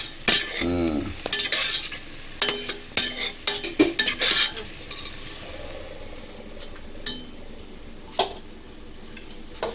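A spoon stirring and scraping browned onion-and-spice masala as it fries in a pan, with sizzling. Quick scraping strokes come for the first four seconds or so, then mostly a steady sizzle with an odd clink.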